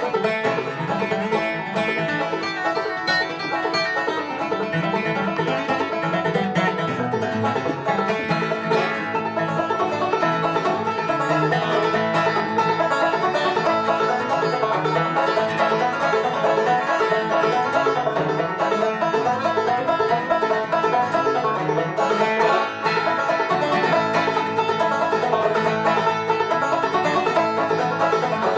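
Five-string banjo and acoustic guitar playing a fast, steady old-time instrumental together, the banjo carrying the tune over the guitar's rhythm.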